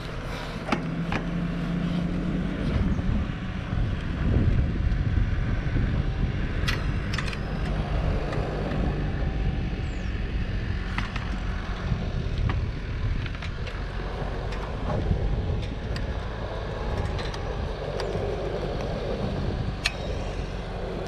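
Scattered clicks and knocks of a helmet being hooked onto a small key-operated Yamaha helmet lock under a motorcycle seat, with the key being worked. They sound over a steady low rumble.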